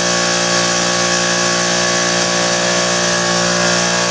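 Plasma cutter running steadily, a loud, unbroken hiss over a constant electrical hum, as it cuts through the steel factory exhaust.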